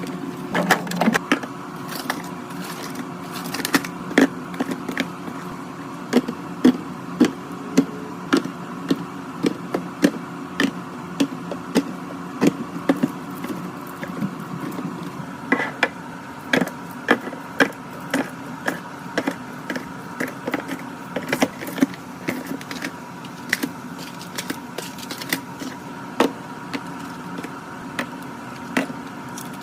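Containers, jars and packaging being set down, tapped and handled while a fridge is restocked: a string of irregular sharp clicks and knocks, a few a second, over a steady hum.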